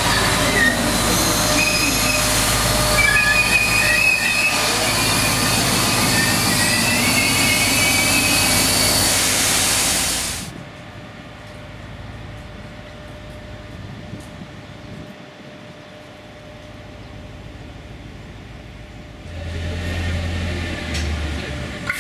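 Trenitalia Minuetto multiple unit moving close by along the platform, its wheels squealing with wavering high-pitched tones over a loud running noise for about ten seconds. The sound then cuts off abruptly into quieter station ambience. Near the end a low steady hum and louder noise come in from another Minuetto unit at the platform.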